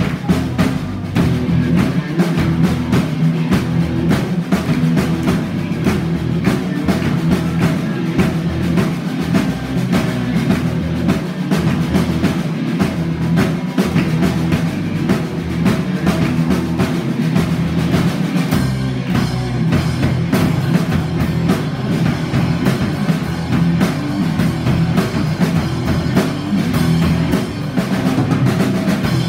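Live band playing a song, with a drum kit keeping a steady driving beat.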